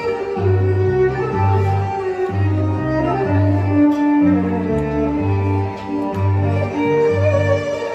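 Instrumental music, likely strings: a low note repeating about once a second under a slow melody.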